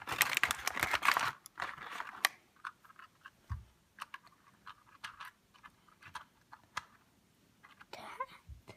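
Scattered light clicks and taps of plastic toy train cars and track pieces being handled and set down, with one soft low thump a few seconds in.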